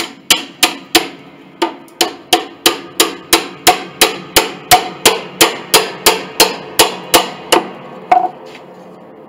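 A steel hammer striking a chisel about three times a second, roughly two dozen sharp ringing blows that stop about eight seconds in, driving the chisel into an old hide-glue joint to split a glued wooden piece off an upright piano's case.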